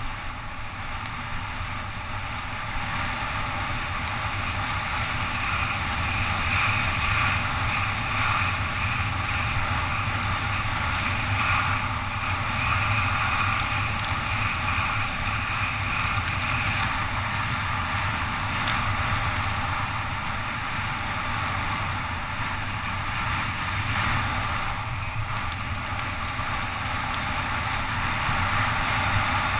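Steady rush of wind over a helmet-mounted action camera, with tyre hiss on wet asphalt, from a bicycle descending at speed; it grows louder over the first few seconds as the speed builds.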